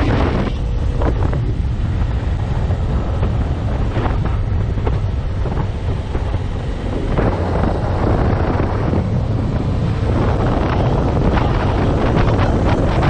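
Heavy wind buffeting the microphone of a 2015 Yamaha FZ6R motorcycle riding at speed, a steady low rumble that dips briefly about halfway through.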